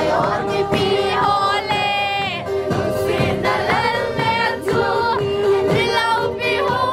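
Group singing with musical accompaniment: several voices singing together over a steady held note.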